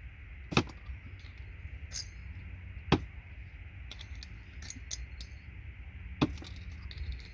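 Plastic connector housings cracking and snapping as they are pried off the gold-plated pins of RJ45 patch panel connectors: four sharp snaps at irregular intervals, the loudest about three seconds in, with lighter ticks in between.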